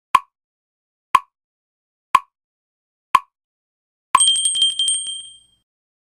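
Countdown sound effect: four sharp ticks one second apart, then a bell rings with quick repeated strikes and fades out within about a second and a half.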